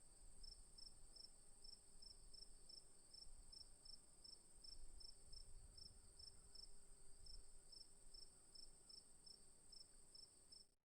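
Crickets chirping, faint: a continuous high trill with a slower, evenly spaced chirp of about three a second over it. The sound cuts off abruptly near the end.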